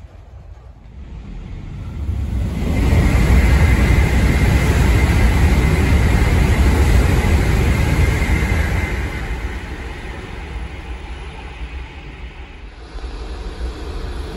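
N700S Shinkansen train passing at speed: a loud rush that builds over about two seconds, holds for some six seconds with a steady high whine over it, then fades away. Near the end the rush of the next train begins to build as it comes out of the tunnel.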